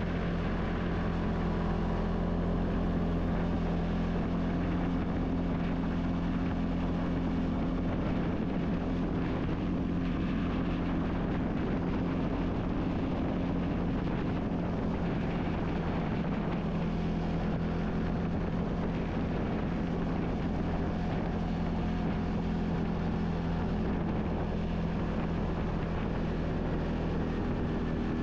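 ATV engine running at a steady, even speed while pushing a snow plow through the snow.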